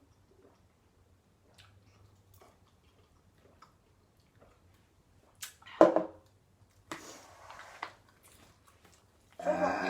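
Quiet chewing with faint mouth and utensil clicks, then a sudden short loud sound about six seconds in, a breathy noisy sound lasting about a second, and a burp beginning near the end.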